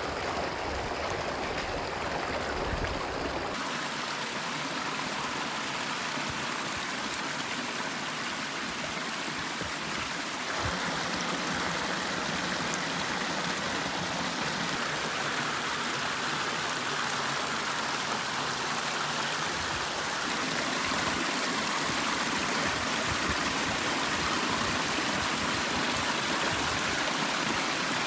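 Pump-fed garden pond waterfall: water pouring steadily over boulders and log ledges and splashing down a series of small cascades into a rocky stream. The splashing shifts slightly in tone a few times.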